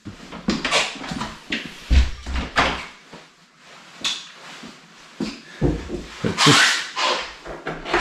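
Irregular knocks, bumps and rustles, with heavy thumps about two seconds in and again in the middle, and a louder noisy burst near the end.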